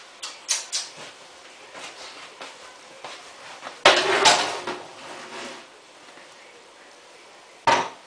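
Samsung WF8804RPA front-loading washing machine's drum slowly tumbling a load during the heating phase of a 95° wash, with clacks and clatter as the laundry turns over. A few clacks come in the first second, the loudest clatter about four seconds in, and one sharp clack near the end.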